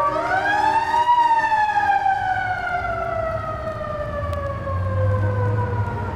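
A siren winds up quickly in pitch over about a second, then winds slowly down over the next several seconds. A low rumble comes in under it about four seconds in.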